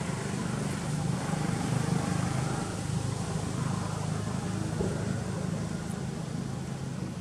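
Steady low engine rumble with a light hiss over it, with no clear single knocks or calls.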